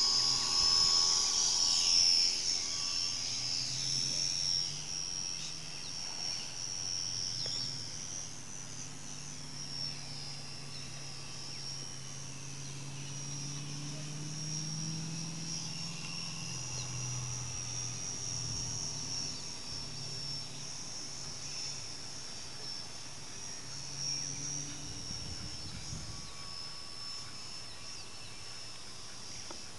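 Small electric RC floatplane's 300-size motor and propeller running at full power: a high steady whine that is loudest in the first few seconds as the plane runs across the water on its floats and lifts off, then fainter and wavering as it climbs away and flies around.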